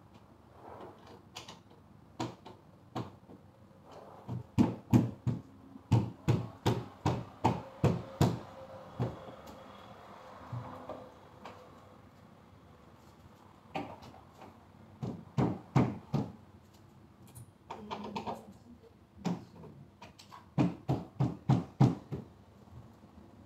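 Sharp knocks on a particleboard bed frame as it is assembled, with panels or fittings struck into place. A few single knocks come first, then three runs of quick even strikes, a few a second, the first and longest about four seconds in.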